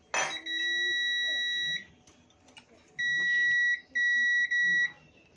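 Multimeter's continuity buzzer beeping a steady high tone as its probe touches points on a circuit board: one long beep of over a second, then after a pause a run of beeps that cut out and resume as contact is made and lost. A sharp knock comes just before the first beep.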